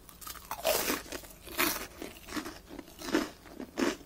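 Crunching from chewing a bite of deep-fried shrimp toast (menbosha) on rice bread, crispy-fried. There are about five crisp crunches a little under a second apart.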